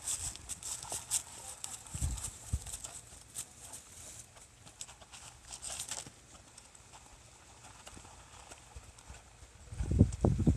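Horse hooves clip-clopping, a quick run of sharp clicks for about the first six seconds, then quieter. A burst of low thumps near the end.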